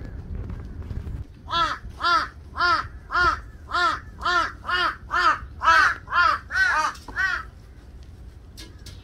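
A crow cawing in a rapid series of about a dozen harsh calls, roughly two a second, starting a second and a half in and stopping near the end.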